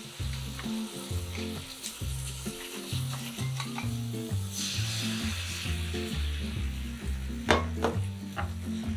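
Beaten egg for dashimaki tamago sizzling in a hot, oiled copper tamagoyaki pan over a gas flame, with the sizzling swelling about halfway through as fresh egg goes in. A few sharp clicks of chopsticks against the pan come near the end.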